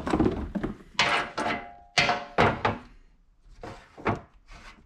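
Several clunks and knocks as a plastic electric radiator fan is handled and set down on an aluminum fan shroud, with one knock about two seconds in leaving a brief ring.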